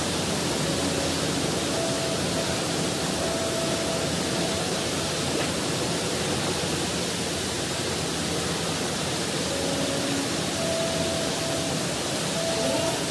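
Loud, steady rushing noise with no rhythm, with a few faint short tones showing through it now and then.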